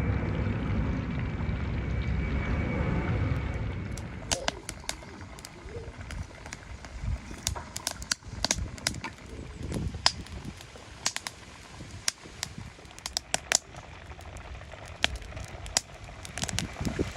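Steady low rumbling noise that fades about four seconds in, followed by scattered sharp crackles and clicks.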